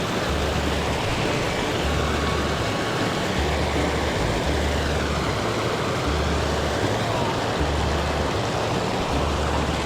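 Background music with a steady low beat, about one beat a second, over the steady rush of flowing stream water.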